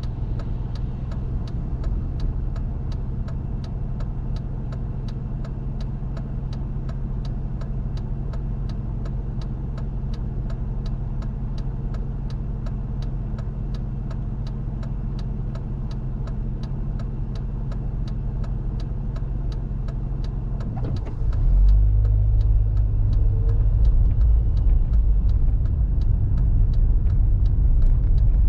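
Car engine running steadily, heard from inside the cabin, with a turn-signal indicator clicking about twice a second. About two-thirds of the way through, the engine rumble gets suddenly louder and deeper as the car pulls away and picks up speed.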